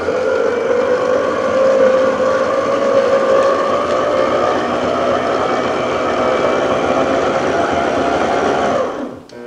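Electric stand mixer running, its beater working butter into a bowl of cocoa and flour: a steady motor whine that creeps slowly higher in pitch, then stops shortly before the end.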